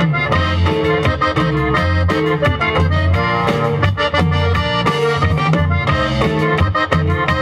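Band music: an accordion-like lead melody over guitar and a steady bass line in repeated low notes.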